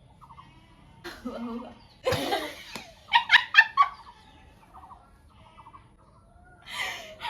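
A girl's harsh cough about two seconds in, followed by short bursts of giggling, with another cough near the end.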